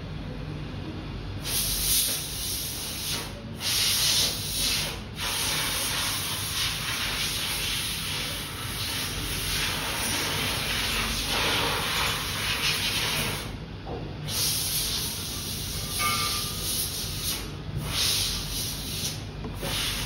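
Hot-air heat gun blowing with a steady hiss, which starts about a second and a half in and drops out briefly a few times; a low hum runs underneath.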